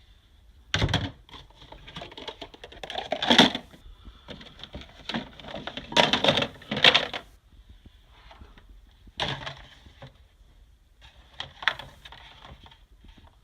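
Plastic food storage containers and lids clattering as they are handled and dropped into a box: irregular knocks and rattles with short pauses between.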